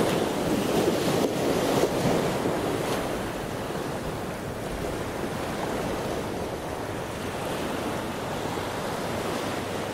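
Ocean surf breaking on a beach, with wind on the microphone; the wash is a little stronger in the first few seconds, then settles to a steady rush.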